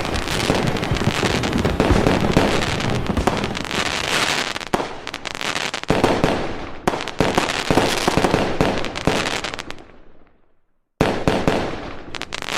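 Fireworks: a dense, continuous crackle of rapid pops and bangs that fades out about ten seconds in, then starts again abruptly a second later.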